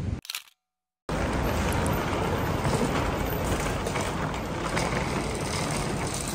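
Background music cuts off, a brief silence follows, then a steady noise of suitcase wheels rolling over the floor, mixed with the general bustle of a busy airport entrance.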